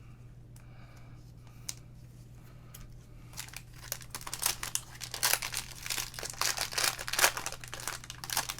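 Foil trading-card pack wrappers being torn open and crinkled, starting about three seconds in and turning into a busy, rapid crackle.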